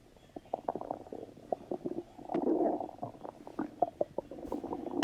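Stomach rumbling: a run of short pops and bubbling gurgles, with a longer, louder gurgle about two and a half seconds in.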